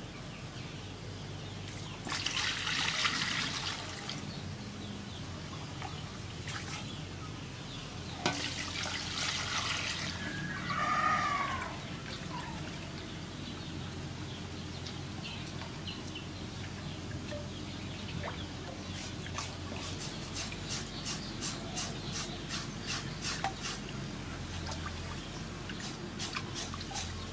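Water splashing and sloshing in a metal basin as a slab of pork is washed, twice in the first half. Then a knife scrapes over the pork skin again and again, several quick strokes a second, to clean it.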